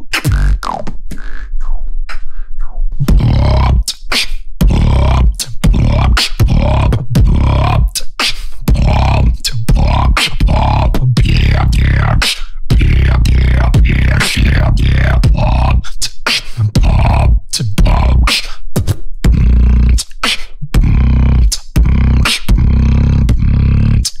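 Beatboxing: a fast beat of sharp percussive mouth strokes, joined about three seconds in by a heavy, sustained vocal bass that runs under the beat.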